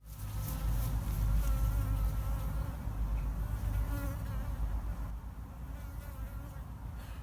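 Honeybees buzzing around a swarm, with one bee flying close and its whine wavering in pitch; the buzz is loudest in the first few seconds and eases off toward the end.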